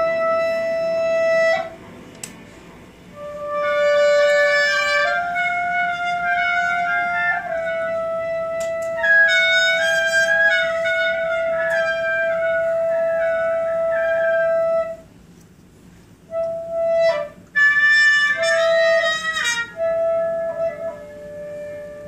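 Live trumpet, clarinet and electric guitar playing long held notes that overlap, with a wavering higher line above a steady middle tone. The notes fall away briefly twice, once near the start and again about two-thirds of the way through.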